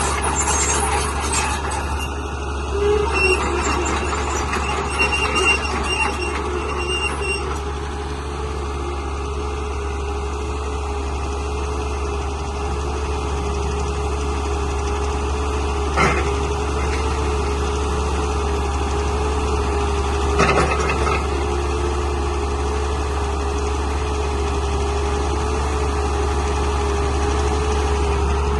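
JCB excavator's diesel engine running steadily, with a constant low rumble and a steady, slightly wavering whine. Two short knocks land in the second half.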